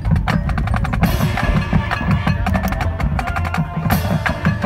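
High school marching band playing its field show, led by drums and mallet percussion in rapid strikes, with two bright crashes, about a second in and near the end.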